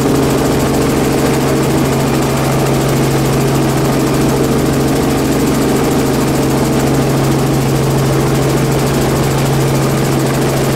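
Light aircraft engine and propeller running at steady power, a constant even-pitched hum with no change in level.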